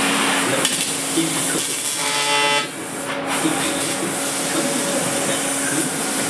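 A 6 kW fiber laser cutter cutting 20 mm carbon steel plate: a steady, loud hiss of assist gas and the cut over a low machine hum. A brief pitched tone sounds a little before halfway, followed by a short dip in level.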